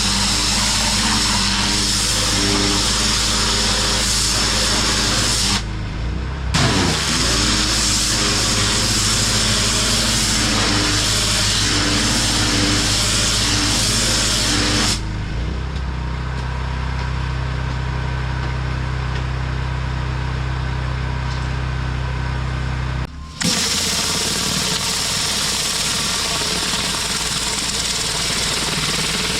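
Petrol-engine pressure washer running steadily, its high-pressure spray hissing against concrete. In the middle the spray stops for several seconds while the engine keeps running, then the spray hiss returns after an abrupt change.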